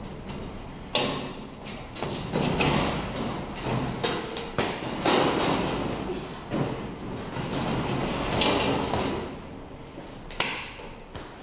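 Footsteps on a perforated steel mezzanine floor: an uneven series of thuds and taps.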